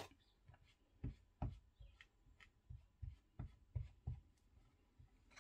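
A sharp plastic click as an ink pad's lid comes off, then a run of soft, dull taps, about three a second, as the Distress Oxide ink pad is dabbed onto a clear acrylic stamp block.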